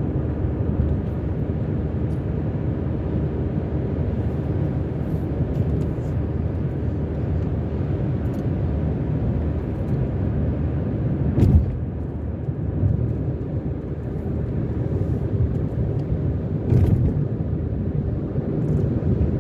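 Car driving on a highway, with steady engine and tyre rumble, and two short thumps about eleven and seventeen seconds in.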